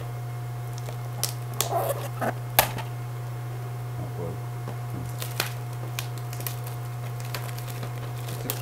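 Plastic DVD case being handled and opened: a scattered series of sharp clicks and light rattles, the loudest about two and a half seconds in, over a steady low hum.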